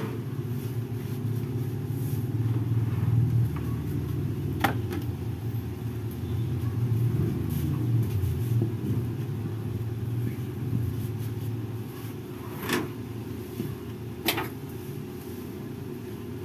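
A low, steady rumble that swells a couple of seconds in and eases off near the end, with three sharp clicks over it.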